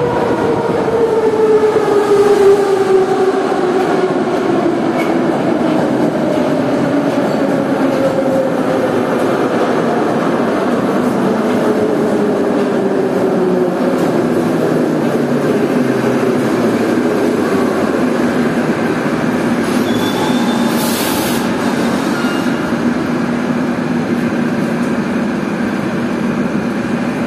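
81-717/714 ('Nomerny') metro train braking into the station: its traction motors whine in several tones that fall steadily in pitch for about eighteen seconds, over the rumble of the wheels. The whine then settles into a steady hum, with a short hiss about twenty seconds in as the train stops.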